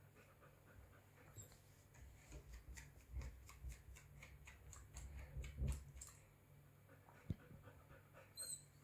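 Kuvasz puppy panting faintly in a quick, even rhythm, with a few soft low bumps, then a single sharp click about seven seconds in.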